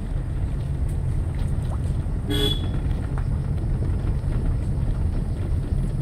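A vehicle horn gives one short toot a little past a third of the way in, over a steady low rumble.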